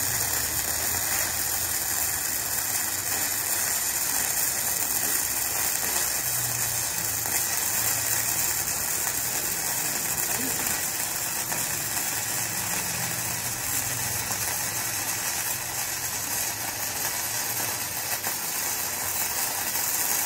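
KOBE MIG-272 PRO MIG welding arc crackling steadily without a break as a continuous drag bead is run along box-section steel.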